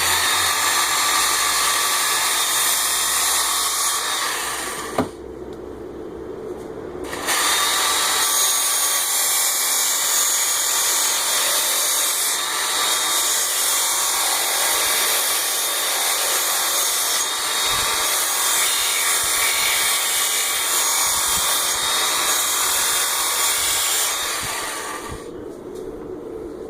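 Work Sharp Ken Onion Edition belt sharpener grinding the steel bevel of an axe, a steady hissing grind. It breaks off about four seconds in, a single click follows, and a second long pass starts about seven seconds in and fades near the end.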